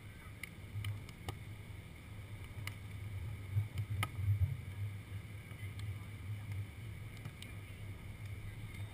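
Beach volleyball rally: a handful of short, sharp smacks of hands striking the ball, spread across the rally, over a steady low rumble of wind on the microphone.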